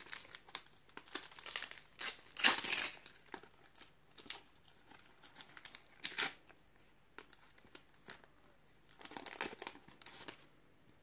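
A Panini Adrenalyn XL trading card booster pack's plastic wrapper being torn open and crinkled, with the cards handled in small clicks between. There are several crackly bursts, the loudest a little over 2 seconds in, others around 6 seconds and just before the end.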